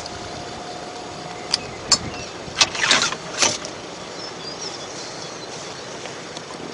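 Golf buggy running, with a thin steady whine for about the first two seconds over outdoor hiss, and a handful of sharp clicks and knocks between about one and a half and three and a half seconds in.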